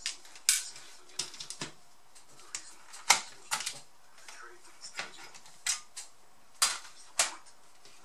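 A dozen or so irregular sharp clicks and taps of hard plastic and metal parts being handled on a laptop's open underside, as a 2.5-inch hard drive is worked out of its drive bay.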